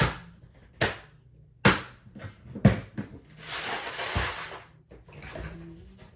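Hand tools being picked up and set down: a series of sharp knocks and clatters, the loudest about two and a half seconds in, with a scraping rustle around four seconds in.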